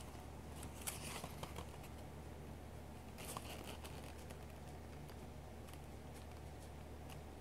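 Crumpled graph paper crinkling and rustling under a hand in short bursts during the first few seconds, then only faint light ticks as a ballpoint pen tip works on the paper. A steady low hum runs underneath.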